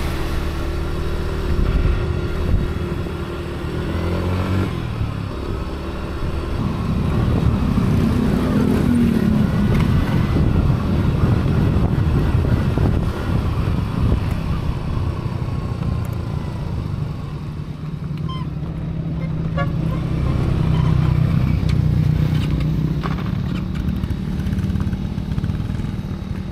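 Motorcycle engine running under way, its pitch rising and falling a few times.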